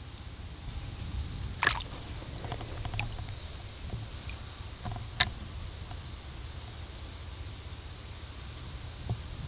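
Shallow creek water splashing as a landed Australian bass is let go: a few short splashes, the loudest about one and a half and five seconds in, over a steady low rumble.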